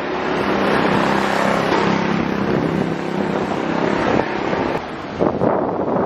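City street traffic noise, with a vehicle engine running nearby as a steady low hum that fades a little past halfway, and wind buffeting the microphone.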